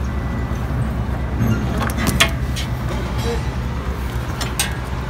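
A steady low engine rumble with a fine, even pulse, with a few sharp clicks and knocks from handling the battery charging cable, about two seconds in and again near the end.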